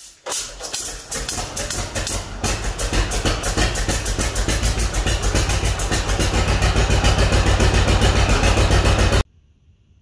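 John Deere two-cylinder tractor engine starting and running, its even put-put firing picking up speed. The sound cuts off suddenly near the end.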